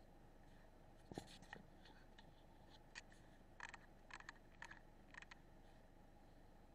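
Near silence with a handful of faint clicks and scratches starting about a second in: handling noise from the rifle and its night-vision scope.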